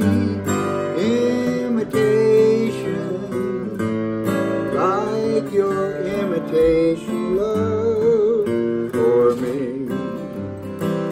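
Solo acoustic guitar playing an instrumental break between verses, picking out the melody over strummed chords.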